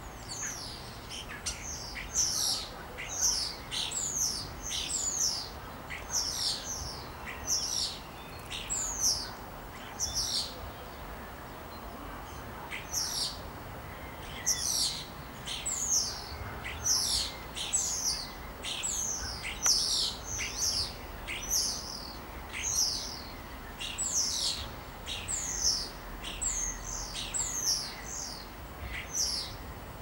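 A songbird singing: a long string of short, high, quickly falling notes, one or two a second, with a brief lull near the middle.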